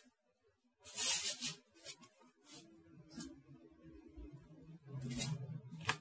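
Cardboard box flaps and packing being handled: a short scraping rustle about a second in, a few light taps, and another rustle near the end as the bubble-wrapped contents are touched.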